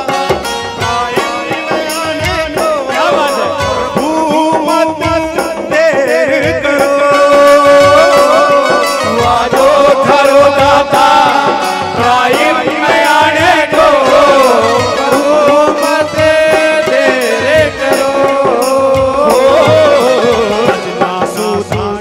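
Live Hindi devotional bhajan: a lead singer and a group of male voices singing through microphones and loudspeakers over keyboard and drum accompaniment.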